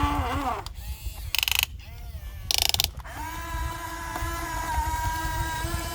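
Radio-controlled excavator's small electric motors and gearing whining, the pitch sliding as it works. Two short gear rattles come around one and a half and two and a half seconds in. After that a steady whine settles in.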